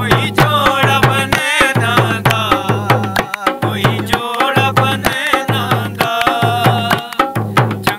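A dholak barrel drum played by hand in a steady rhythm, under a man's voice singing a Hazara folk mahiya in an ornamented, wavering line.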